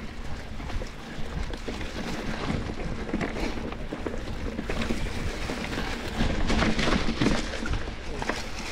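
Mountain bike riding over a rough dirt trail: steady wind rush on the microphone with tyre rumble and rattling from the bike, growing louder about six seconds in.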